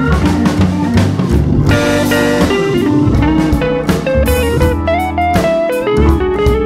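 Instrumental background music with guitar, bass and drums.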